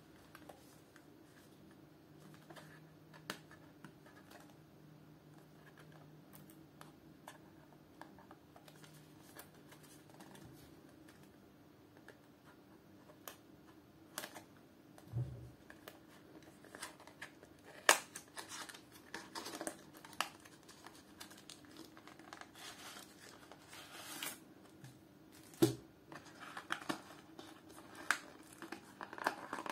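Handling noises from unboxing a small cardboard box: faint at first, then a knife slitting the box's wrap or seal and the cardboard flaps being pried open, with scraping, crinkling and a few sharp clicks and taps.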